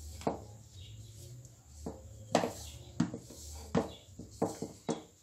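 A stainless steel mixing bowl knocking and clattering irregularly, about seven times, as hands rub butter into flour inside it.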